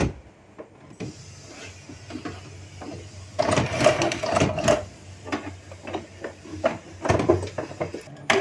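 Canon G3060 inkjet printer running its power-on start-up routine: a click at the start, then from about three and a half seconds in, a string of short motor whirs and mechanical clicks as the print-head carriage and feed mechanism move and reset. The carriage is running on a newly fitted drive belt during a test start.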